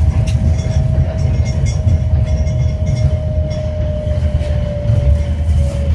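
Yurikamome rubber-tyred automated guideway train heard from inside the cabin while running: a steady low rumble with a motor whine that slowly falls in pitch, and faint scattered ticks.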